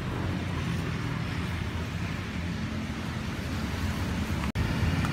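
Steady low rumbling outdoor background noise. It cuts out for an instant about four and a half seconds in.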